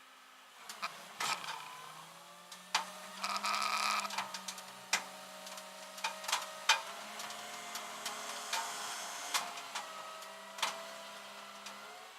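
A run of sharp clicks and knocks, metal-on-metal work sounds, over a faint wavering mechanical hum, with a brief whirring burst about three seconds in.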